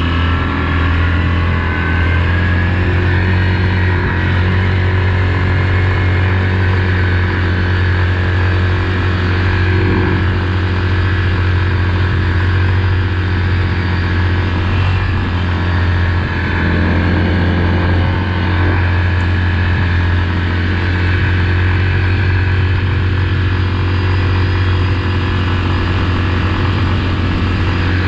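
Yamaha Grizzly 700 ATV's single-cylinder four-stroke engine under throttle at speed, rising in pitch as it speeds up over the first few seconds, then running steady at a fast cruise.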